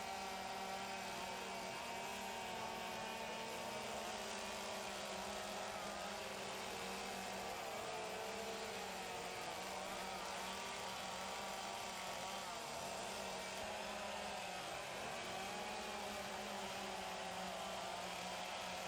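Several chainsaws running at once, their engine pitches wavering up and down independently as they cut into wood.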